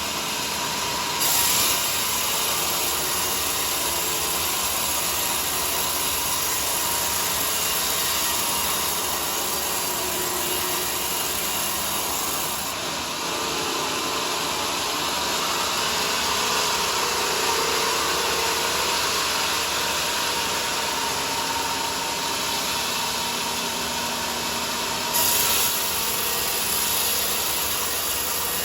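Bandsaw sawmill cutting a teak log, a steady running saw noise with two brief louder surges, about a second in and near the end.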